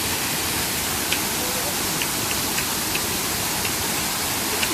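Rocky river waterfall rushing steadily, with a few faint, sharp high ticks scattered through it.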